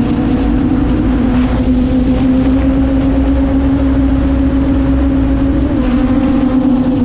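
Quadcopter drone's motors and propellers buzzing in flight, heard close up from the camera it carries. The hum is loud and steady over a rush of air, and its pitch shifts slightly as the drone manoeuvres.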